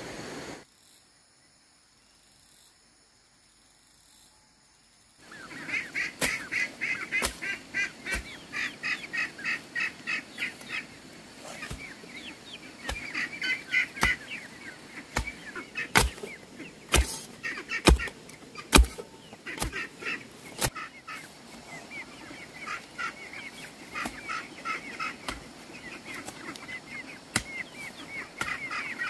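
After a few seconds of near silence, chickens call in quick chattering runs, with the sharp knocks of a hoe striking the ground at irregular intervals.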